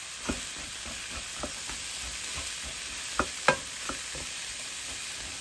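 Diced mushrooms and green peas sizzling in oil in a nonstick frying pan while a wooden spatula stirs them. The spatula knocks against the pan several times, loudest twice in quick succession about three seconds in.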